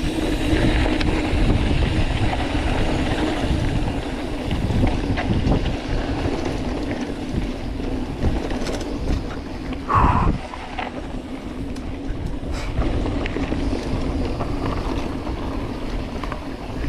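Wind buffeting the microphone of a camera on a mountain bike ridden fast over a dry dirt trail, with the steady rumble and rattle of the bike over the ground. A brief louder sound stands out about ten seconds in.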